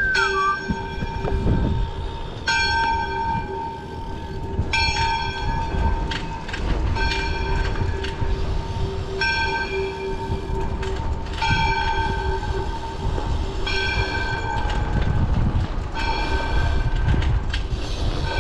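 Church bell tolling at midnight, one ringing stroke about every two and a quarter seconds, each note hanging on until the next. Under it is a low rumble of wind and tyres from the moving bike.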